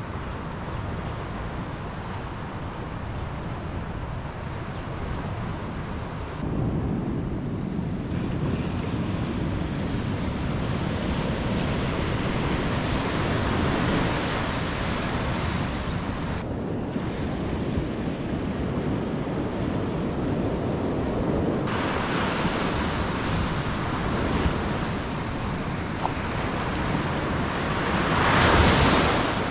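Ocean surf washing up on the beach, with wind blowing over the microphone; a louder wave surges in near the end.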